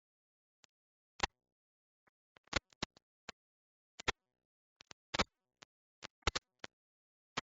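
A string of sharp, irregular clicks and taps, about fifteen, separated by quiet.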